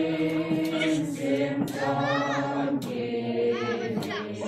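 A group of people singing together unaccompanied, holding long notes.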